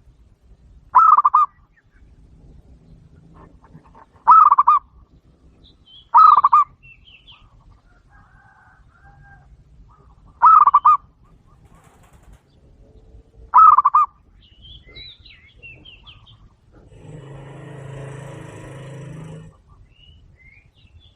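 Captive doves calling: five short, loud, rapidly pulsing coos a few seconds apart. Near the end comes a longer rustling, whirring burst lasting about two and a half seconds.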